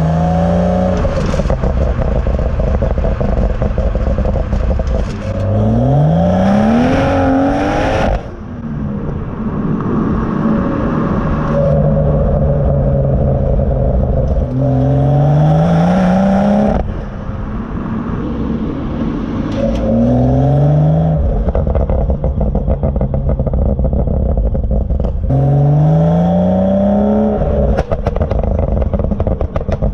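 BMW M140i's turbocharged inline-six, fitted with a large aftermarket downpipe, accelerating hard: repeated rising revs, each cut off by a gear change. Bursts of crackles and pops come from the exhaust in between, loudest near the end.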